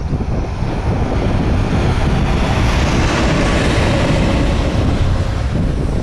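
JR Freight EF510 electric locomotive running light, with no wagons behind it, passing close by, its wheels running on the rails. The noise swells to its loudest about halfway through as it goes past.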